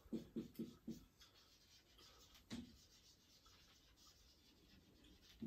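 Whiteboard marker writing on a whiteboard: four quick, faint strokes in the first second, and one more about two and a half seconds in.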